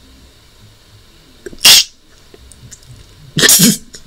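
A person's stifled, snorting laugh: a sharp burst of breath about a second and a half in, then a longer laughing burst near the end.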